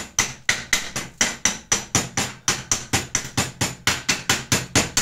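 Chipping hammer knocking slag off a fresh stick-electrode weld bead on a steel plate: rapid sharp metallic taps, about five a second, each with a short ring, with a brief pause about two seconds in.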